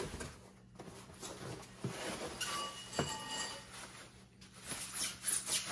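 Packing paper and plastic rustling and crinkling as parts are unwrapped and pulled from a cardboard box, with a few light knocks; the crinkling is densest near the end.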